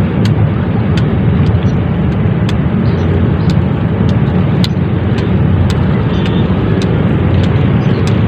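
Wind buffeting the microphone: a loud, steady low rumble that flickers constantly, with faint sharp clicks about once a second.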